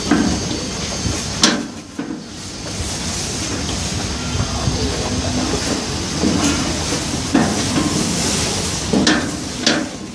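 Sharp metallic clicks, once about a second and a half in and twice near the end, as a steel adjusting rod is slid through the notched slot of a corn sheller's hopper. A steady rushing noise runs beneath them.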